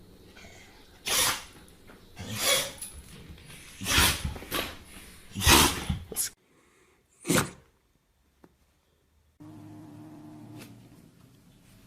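Pets sneezing: about six short, sharp sneezes one after another, then a quiet stretch and a low steady hum near the end.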